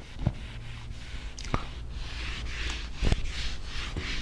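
Board duster wiping marker writing off a whiteboard: quick back-and-forth rubbing strokes, about three a second, strongest from about two seconds in. A few sharp knocks come in the first half.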